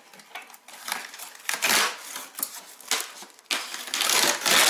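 Packaging being torn open and crumpled while unboxing a fireplace door: irregular crackling rustles, loudest about two seconds in and again near the end.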